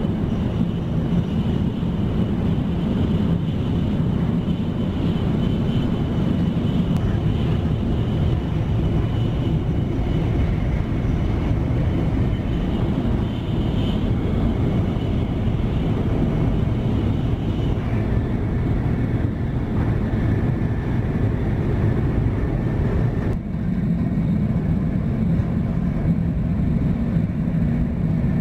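Steady low rumble of a Shinkansen bullet train running, heard from inside the passenger car, with a faint thin high whine above it.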